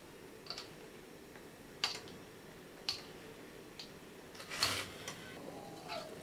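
Wire spider strainer ticking against the side of a stainless steel wok as greens are stirred in hot blanching water: a handful of light metallic taps about a second apart, with one longer, louder swish of water and leaves about two-thirds of the way through.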